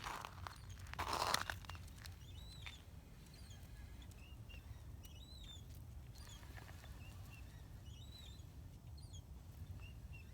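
Repeated short, high-pitched chirps from an unseen animal, each rising and then falling in pitch, coming about once a second with smaller peeps between. A louder crunching rustle comes about a second in.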